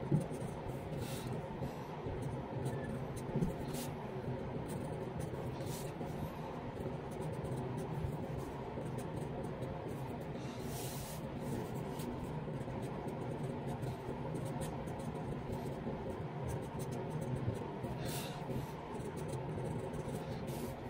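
Fountain pen nib scratching on paper in short strokes as Chinese characters are written, over a steady low hum.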